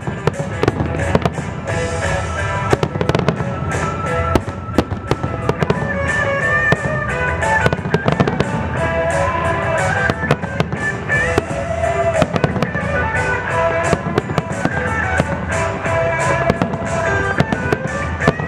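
Fireworks display: aerial shells bursting in many sharp, unevenly spaced bangs, over music that plays throughout.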